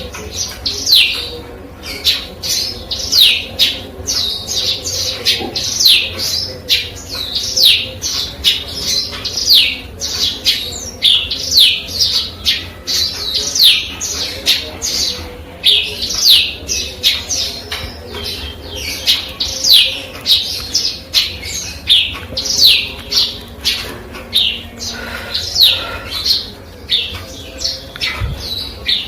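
Eurasian tree sparrow singing without a break: a rapid run of high, downward-sliding chirps, several a second. The song is one learned from canary and cigun recordings.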